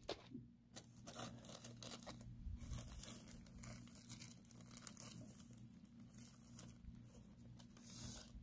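Hands rummaging through an open plastic tackle box: faint, scattered clicks and rustles as lures and plastic packets are moved and crinkled.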